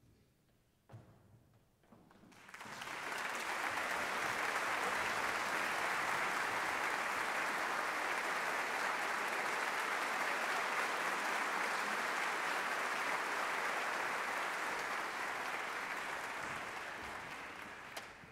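Concert audience applauding: the clapping starts about two and a half seconds in, holds steady, and dies away near the end.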